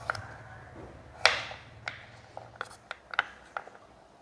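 Kitchen knife dicing raw vegetables on a cutting board: a run of irregular chopping knocks, the loudest about a second in.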